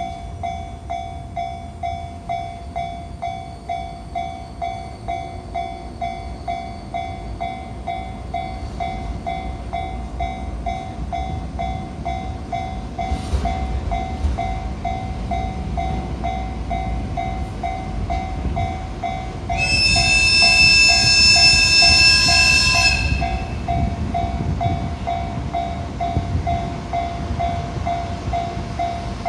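Japanese level-crossing alarm ringing steadily, about two rings a second, while a freight train hauled by a JR Freight EH200 electric locomotive passes with a low rumble. About twenty seconds in, the locomotive sounds one long horn blast lasting about three seconds.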